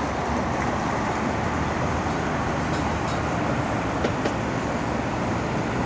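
Steady traffic noise: a continuous rumble and hiss without breaks.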